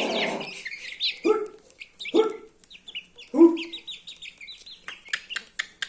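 Chickens: three short, low clucks about a second apart over continual high-pitched cheeping of chicks, with a brief rustling burst at the start.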